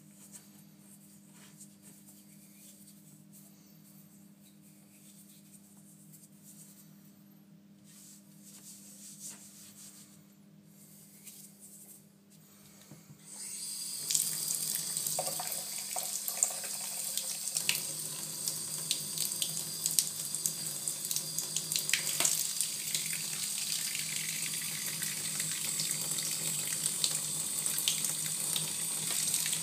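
Water starts running into a bath about halfway through and goes on steadily, splashing over hands. Before it, only a low steady hum and faint rubbing sounds.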